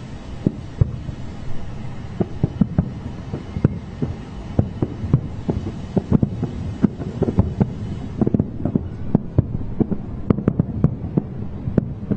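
Fireworks bursting in a rapid, irregular string of dull booms, several a second, over a low rumble.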